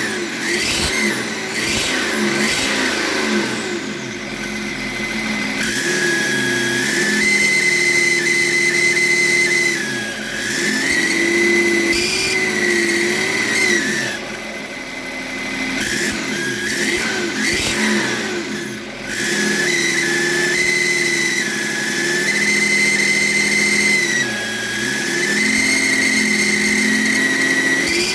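BMW M57 straight-six diesel with a rebuilt turbocharger that howls, a whine that rises and falls with the engine speed several times. The owner finds that the howl goes away when the connector is pulled off the turbo's variable-geometry control valve.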